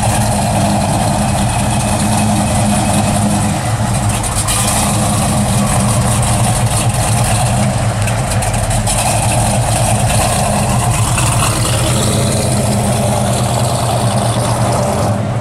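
Classic Dodge Challenger R/T's V8 idling steadily through its dual exhausts.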